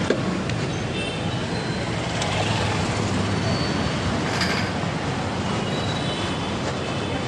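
Motorbike ride along a town street: a steady low engine rumble with wind and road noise, heard from the rider's seat.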